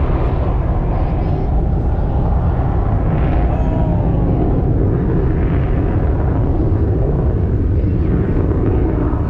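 F-35 Lightning II jet engine running loud and steady, a deep continuous rumble.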